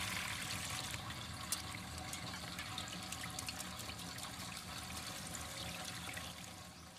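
Water poured from a pot onto raw rice in a steel plate while a hand rubs the grains, then the cloudy rice water sloshing as the plate is tilted and swirled: rice being rinsed. The water sound eases off toward the end.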